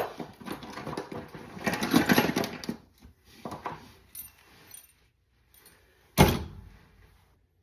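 Metal hand tools being rummaged from a tool bag and set down, clinking and rustling, with one sharp clunk about six seconds in as a tool is put down on a hard surface.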